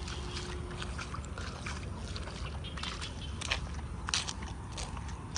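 Steady low wind rumble on the microphone, with irregular short scrapes and clicks of footsteps on a wet concrete road; the two sharpest come about three and a half and four seconds in.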